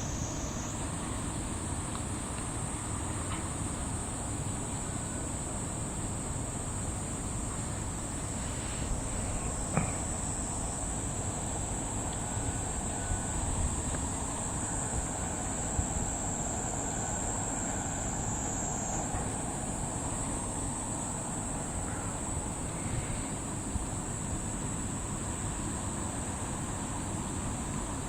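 Insects buzzing steadily in one high, unbroken note that shifts pitch slightly twice, over a low steady rumble, with a faint click about ten seconds in.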